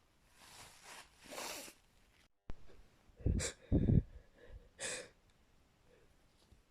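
A person's sneezing fit: a few hissing breaths build up, then a sneeze about three seconds in, followed by a short sharp breath about a second and a half later.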